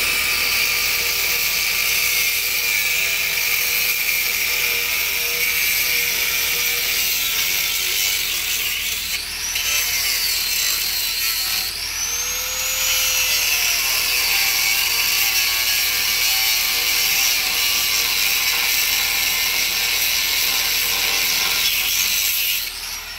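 A handheld power tool runs almost without a break on the bolts of a boat's zinc anodes, removing the sacrificial zincs. Its pitch sweeps up and down twice around the middle, and it cuts off just before the end.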